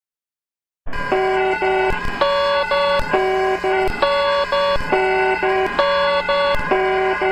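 Electronic emergency alert alarm: loud stacked tones stepping back and forth between a few pitches in a repeating pattern, with a sharp click at many of the changes. It starts after almost a second of silence, where the loop restarts.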